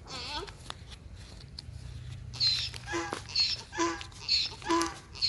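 An animal calling: one short falling call at the start, then a run of loud repeated calls about twice a second from about halfway through.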